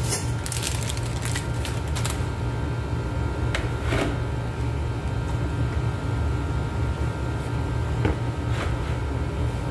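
A steady low hum, with plastic packaging crinkling in the first couple of seconds and a few light clicks later on.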